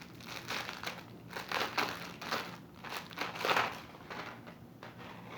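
Packaging crinkling as it is handled and unwrapped, in irregular bursts, loudest about three and a half seconds in.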